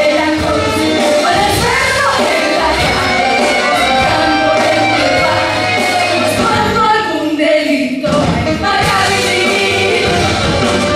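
Musical-theatre song number: an upbeat band accompaniment with singing voices, played loud on a theatre sound system.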